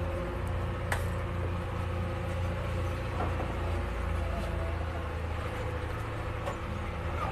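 Steady machinery running with a low, even hum made of a few fixed tones, with a sharp click about a second in.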